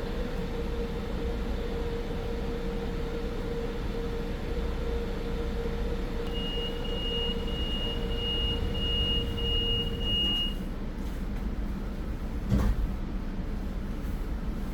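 A Metro-North commuter train standing at the platform with a steady hum. About halfway through, a rapid high beeping sounds for about four seconds: the door-closing warning. A couple of seconds later comes a single thud as the doors shut.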